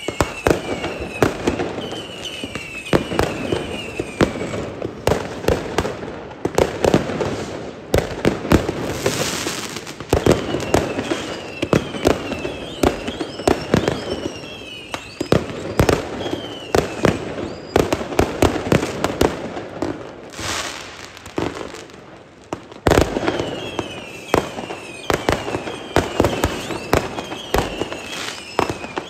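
Many fireworks going off at once: a constant run of sharp bangs and crackles, with repeated short whistles that fall in pitch. A rushing hiss stands out about nine seconds in and again about twenty seconds in.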